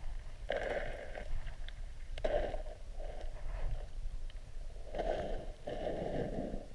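Muffled sound recorded underwater: a steady low rumble of water on the camera, with five short whooshing rushes.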